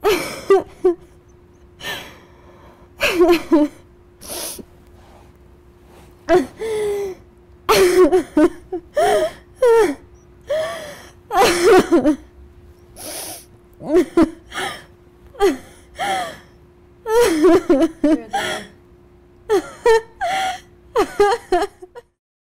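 A woman sobbing, in short repeated bursts of crying and breath, with a faint steady hum underneath; it cuts off suddenly near the end.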